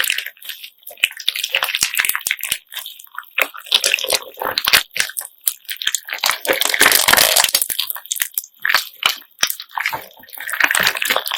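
Hands squeezing and kneading homemade slime mixed with beads: wet squelching over dense crackling and clicking as the beads clack together, thickest about six to eight seconds in.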